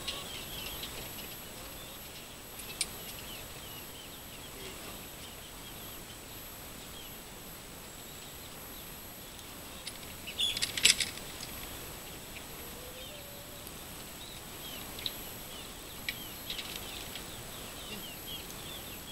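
Birds chirping faintly and continuously outdoors, with a brief clatter of sharp knocks about eleven seconds in and a few single clicks.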